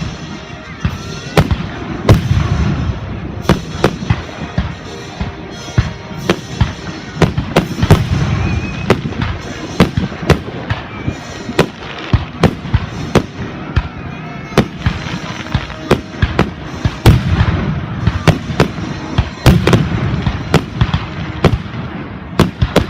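Aerial fireworks display: a rapid barrage of sharp shell bursts, several bangs a second, over deep low booms.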